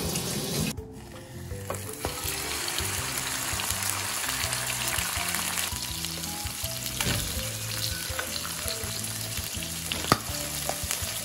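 Carp innards sizzling in hot oil in a frying pan, an even crackling sizzle that builds about two seconds in and keeps going. It starts with a moment of tap water running into a steel sink.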